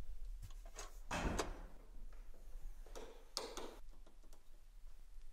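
A few short clunks and clicks from hands working car hardware: the hood release lever in the driver's footwell is pulled, then a clip-on underhood light bar is handled. The loudest clunk comes about a second in, with two more near the middle.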